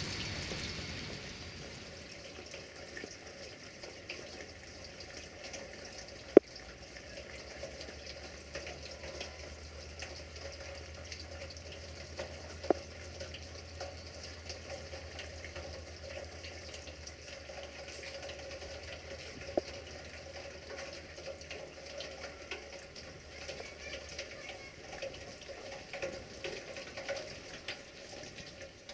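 Steady rain falling, an even hiss. A faint low hum runs through the middle, and three sharp single ticks come about six seconds apart, the first the loudest.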